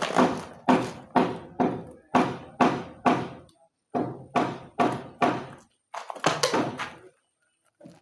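Footsteps thudding on a hard floor, about two a second, in two runs with a short pause about halfway.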